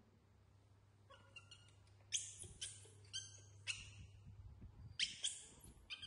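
Young macaques giving a string of short, high-pitched squeaks, several in quick succession, over a faint low hum.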